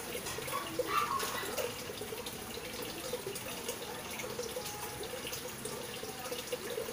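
Water running steadily from a tap while a small white dog is washed on a wet floor.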